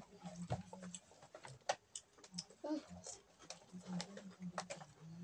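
Children chewing crunchy ring-shaped puffed snacks close to the microphone: a run of small, irregular crackly clicks. A low hum comes and goes underneath.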